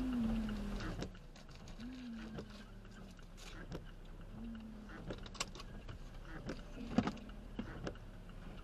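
Windshield wiper motor whining inside a stopped car's cabin. The low whine rises and falls with each sweep, three times in the first few seconds, and there are a few faint clicks.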